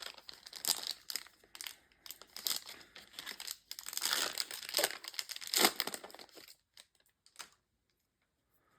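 Plastic-foil booster pack wrapper crinkling and tearing as it is opened and handled, a dense crackle that stops about six and a half seconds in.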